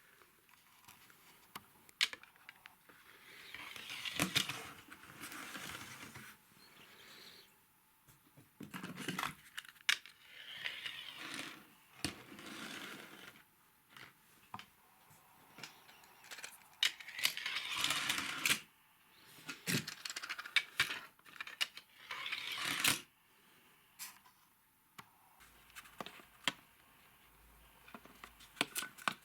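Handling noises from the parts of a model train set: sharp plastic clicks and knocks, with bursts of rustling lasting a second or two.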